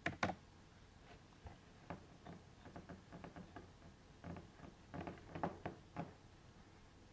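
Computer keyboard keystrokes: a quick pair of sharper key clicks at the start, then a scatter of lighter taps and a few harder clicks over the next six seconds.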